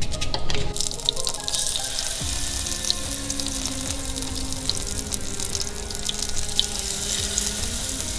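Battered shrimp sizzling and crackling in hot oil in a frying pan, the sizzle starting up about a second in as they go into the oil. Background music plays faintly underneath.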